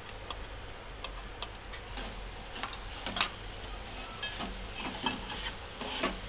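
Metal spoon tapping and scraping against a small steel pot while stirring boiled mutton mince, in irregular clicks several times a second.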